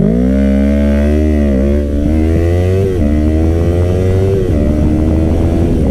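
2015 Yamaha R3 321cc parallel-twin with an M4 full-system exhaust, accelerating hard. Its note rises steadily and drops sharply at three quick upshifts.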